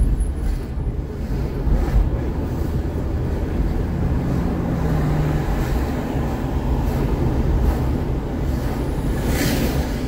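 Road noise heard inside a moving car: a steady low rumble of tyres and engine with a hiss like wind, and a brief rush of louder noise near the end.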